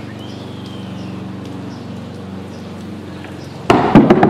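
Bowling ball rolling with a steady low rumble down a wooden plank alley. Near the end it strikes the bowling pins in a sudden loud clatter of knocks.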